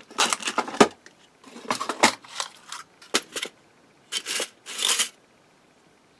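Clear plastic packet of small metal filigree embellishments crinkling and rustling as it is handled, in a quick run of short bursts, which stop about five seconds in.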